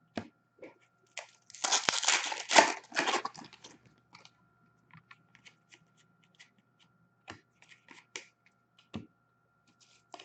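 A card pack's plastic wrapper being torn open and crinkled, a dense tearing rustle lasting about two seconds near the start, then scattered small clicks.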